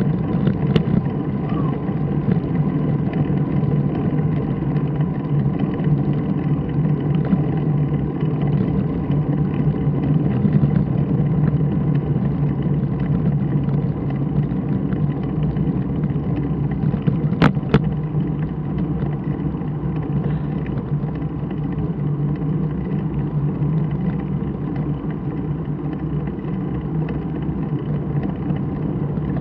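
Steady low rumble of wind and road noise on a camera riding along a paved street, with a short click near the start and a louder sharp click about two-thirds of the way through.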